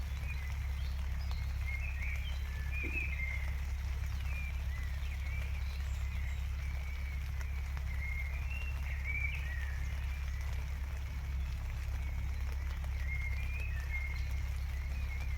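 Small birds chirping and twittering in short phrases throughout, over a steady low rumble and a faint patter of rain.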